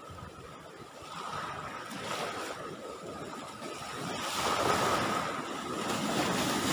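Waves washing onto the shore, with wind on the microphone; the surf swells louder about four seconds in.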